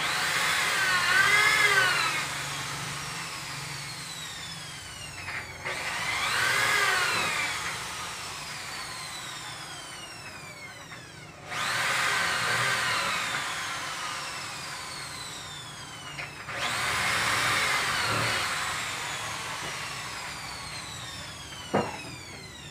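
Corded handheld power tool worked on a wooden cabinet in four short bursts. Each burst starts abruptly, wavers in pitch under load for a second or two, then winds down slowly with a falling whine after the trigger is let go. A short sharp click comes near the end.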